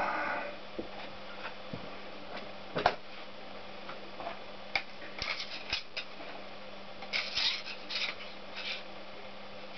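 Light metallic clicks and clinks from the gear shafts and parts of a stripped Honda GL650 crankcase being handled. One knock about three seconds in is louder, and small bunches of clicks come in the second half.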